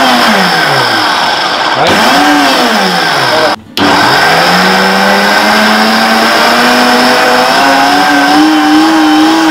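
Steinborg HY-200 blender motor: two short pulse bursts, each whining up and then winding back down. After a brief break it runs continuously, its pitch climbing in steps as the speed dial is turned up, then holding steady near the end.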